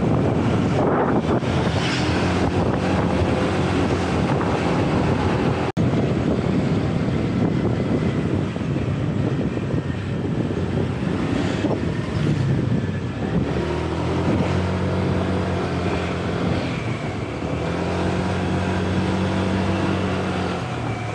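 Motor scooter engine running at a steady road speed, with wind rushing over the microphone. The sound cuts out for an instant about six seconds in.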